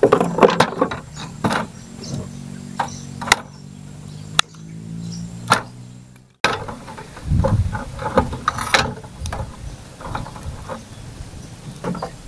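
Sticks of firewood knocking and scraping against each other and against a metal pot stove as they are laid in: a string of irregular sharp clicks and knocks. A low, steady hum runs for a few seconds in the first half.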